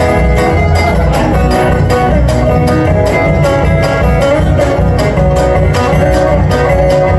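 Live bluegrass band playing: banjos and acoustic guitars picking over upright bass, with a steady driving beat.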